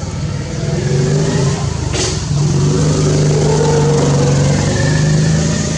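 A motor vehicle's engine running with a steady hum, its pitch rising slowly through the middle as it revs up; a sharp click about two seconds in.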